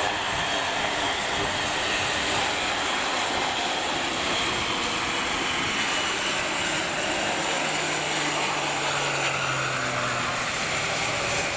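Airbus A400M's four TP400 turboprop engines and eight-bladed propellers running as the aircraft taxis along the runway: a steady engine and propeller noise, with a low hum joining about two-thirds of the way through.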